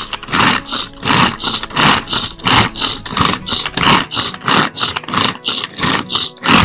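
Electric food chopper run in quick pulses, about three a second, mincing shallots, garlic and ginger in its jar.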